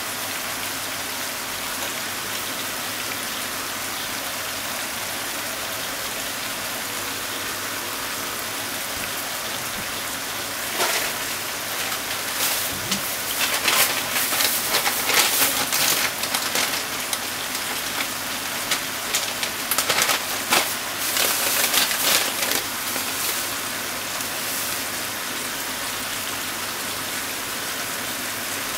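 Chicken and vegetables for sweet and sour chicken sizzling in a frying pan: a steady frying hiss, with louder crackling and spitting through the middle stretch.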